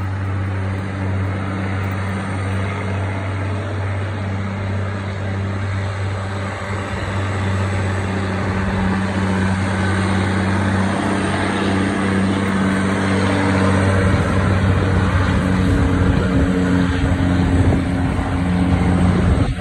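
Heavy diesel dump truck's engine running with a steady low drone, growing louder and rougher about two-thirds of the way in as the truck moves along the road.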